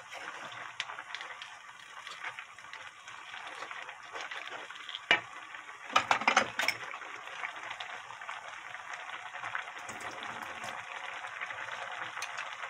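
Spicy braised monkfish with bean sprouts and minari bubbling in a pan, a steady hiss, its sauce still thin and watery. A wooden spoon knocks against the pan a few times about five to six and a half seconds in.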